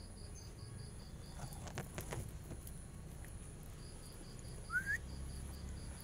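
Crickets chirping in a rapid, even pulse over a steady high insect hum, with a couple of faint clicks about two seconds in. Near the end a short rising bird whistle, the loudest sound, cuts in.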